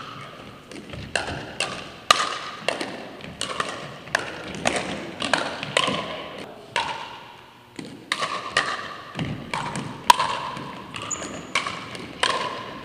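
Pickleball rally: paddles striking the hollow plastic ball and the ball bouncing on the hardwood floor, a run of sharp pocks about every half second to a second, each echoing in the large gym.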